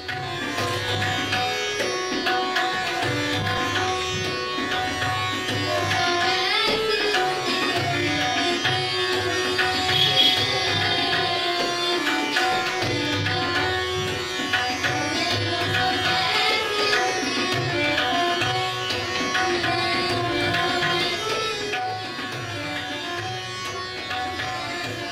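Hindustani classical vocal music: a woman sings over a tanpura drone, with harmonium and tabla accompaniment.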